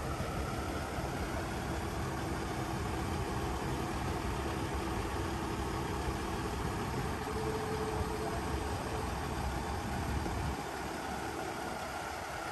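Scania P260 truck's diesel engine running steadily to drive the Fassi F380 crane's hydraulics, a continuous low rumble that eases off about ten seconds in.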